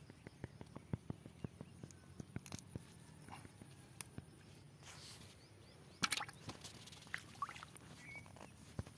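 Faint, irregular small taps and wet rustles of hands working a hook out of a small fish among water plants, then a brief splash-like burst about six seconds in as the fish goes into a bucket of water.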